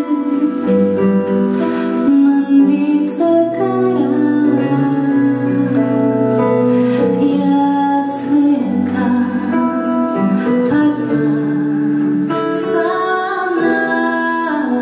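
Live devotional chant music: a female voice sings long held notes over a sustained instrumental accompaniment with a low bass line.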